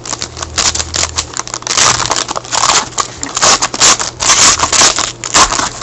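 Foil trading card pack wrapper being crinkled and torn open by hand: a run of irregular sharp crackles.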